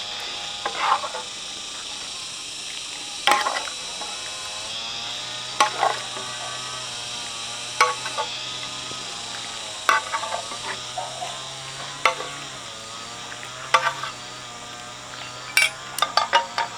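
A cooking utensil knocking and scraping against a pot while food is stirred, a sharp knock every two seconds or so and a quick run of knocks near the end, over quiet background music.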